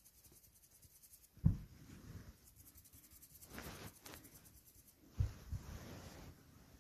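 Faint rubbing and rustling, with a sharp low thump about a second and a half in and two more around five seconds in.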